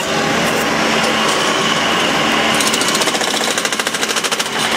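Harsco Top Gun 2000 spiking machine hammering spikes into railroad ties in a rapid, jackhammer-like run of blows, driving them down to fasten the rails.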